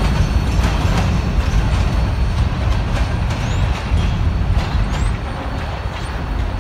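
Rear cars of a freight train, covered hoppers, rolling away on the track: a steady low rumble of steel wheels on rail with occasional sharp clacks at rail joints, easing off slightly near the end.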